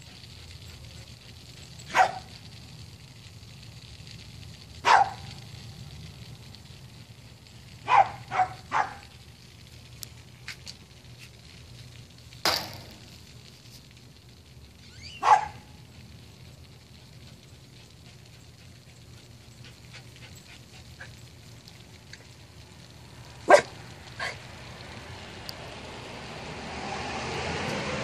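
A dog barking in sudden single barks several seconds apart, about nine in all, with a quick run of three about eight seconds in, over a steady low hum. Near the end a vehicle's noise rises as it approaches.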